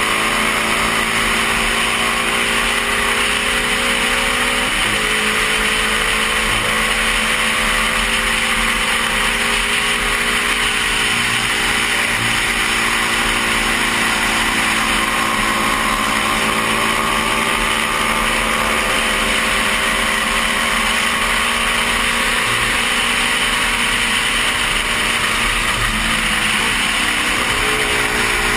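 1972 Honda CB350 parallel-twin engine running hard on a race track, its note rising and falling, with abrupt pitch changes about five seconds in and near the end. A strong rush of wind over the helmet-mounted microphone runs underneath.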